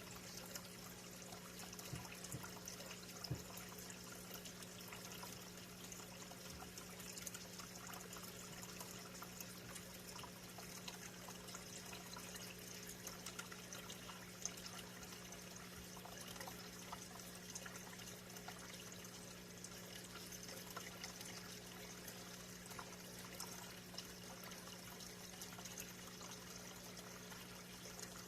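Aquarium filter running: a faint, steady trickle of water with a low steady hum underneath.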